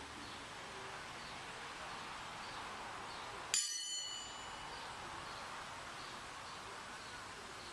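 A single sharp metallic clang about three and a half seconds in, ringing on for about a second in several high tones. Underneath is a faint steady hiss with soft, evenly repeated high chirps.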